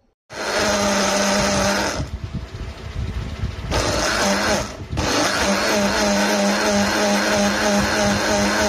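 PowerPac PPBL500 personal blender's motor starting abruptly and running at full speed, blending fruit into a smoothie. It runs steadily with a constant hum, easing briefly about two seconds in and again near five seconds before picking back up.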